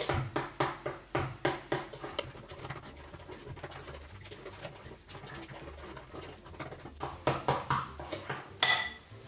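Spatula stirring a thick, wet glue-and-shaving-foam slime mixture in a bowl: quick sticky strokes, about four a second, for the first two seconds, softer stirring in the middle, and faster strokes again later. One sharp click near the end.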